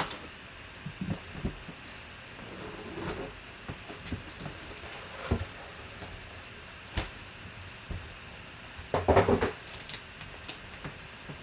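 A cardboard box being cut open along its tape with a blade, its flaps pulled back, and a plastic-wrapped package lifted out and set down: scattered knocks, scrapes and crinkles, with the loudest cluster of handling about two seconds before the end.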